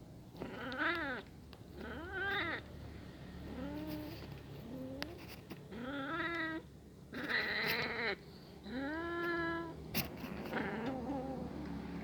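Hungry kitten meowing over and over, about eight cries that each rise and fall in pitch, one harsher and noisier near the middle.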